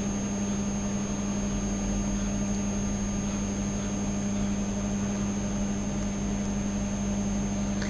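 Steady low electrical hum under a constant hiss, with two faint high-pitched whines; it does not change.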